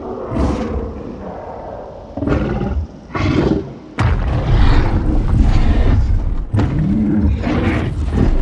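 Designed film sound effect of Kong, the giant ape, roaring and growling in a string of separate calls. The longest and loudest starts abruptly about halfway through, with a deep rumble under it.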